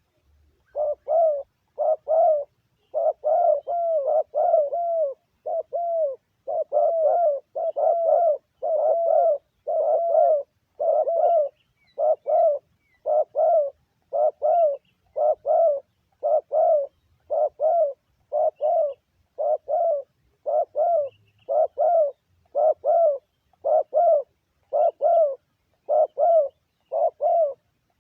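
Spotted dove cooing over and over: short, low coo notes repeating about once a second.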